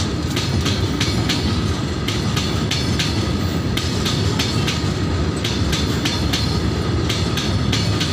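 Freight train of hopper and open wagons rolling past: a steady rumble with the clickety-clack of wheels over rail joints, the clicks coming in quick pairs and small groups.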